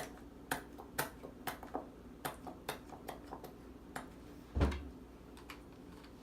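Light plastic clicks and taps from small lotion bottles being handled and opened, with one heavier thump about four and a half seconds in.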